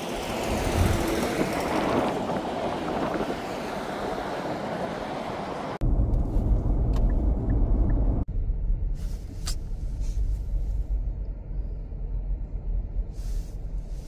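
Steady rush of highway traffic driving past. About six seconds in it cuts to the low rumble of road noise inside a moving car's cabin.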